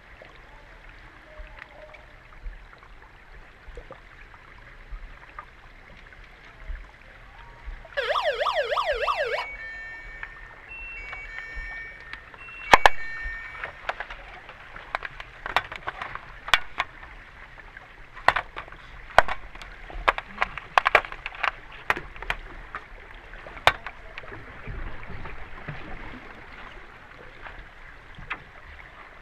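Underwater, a warbling electronic siren sounds for about a second and a half, the referees' underwater sounder that stops play in underwater hockey, followed by a few short steady beeps. Then comes a run of sharp clicks and knocks from sticks and puck striking the pool floor and metal goal tray, the loudest a little after the beeps begin, over a steady hiss of water.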